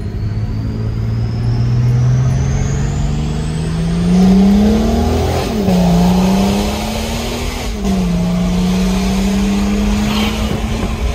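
BMW 535d E60's tuned twin-turbo straight-six diesel pulling hard through the gears, heard from inside the cabin: the engine note climbs, drops at an upshift about five seconds in, climbs again and drops at a second upshift near eight seconds, then holds steady. A high whistle rises with the revs during the first pull.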